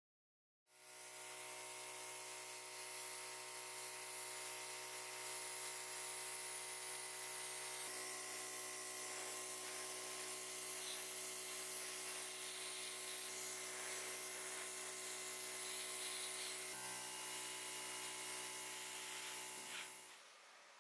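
Airbrush spraying paint, driven by a small compressor: a steady motor hum under a hiss of air. It starts just under a second in and fades out near the end.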